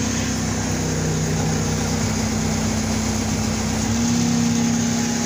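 Skid steer engine running steadily while its forks hold and lift one side of a bulldozer, the engine working under load; its note shifts slightly about four seconds in.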